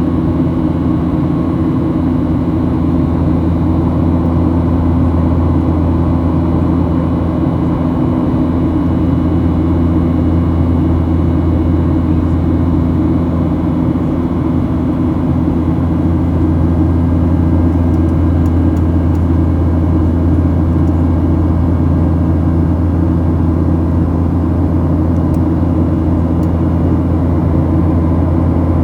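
Boeing 737 airliner's jet engines and airflow, a loud, steady drone with a low hum and a few steady tones that do not change.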